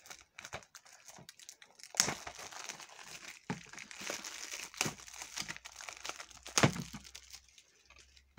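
Clear plastic shrink-wrap being torn and peeled off a Blu-ray case by hand: crinkling and crackling with a few sharp snaps, starting with faint clicks and growing busy about two seconds in.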